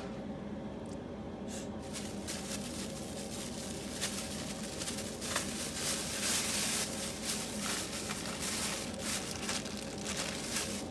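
Kitchen food-prep handling noises: rustling and light clicks and clatter, busier in the second half, over a steady low hum.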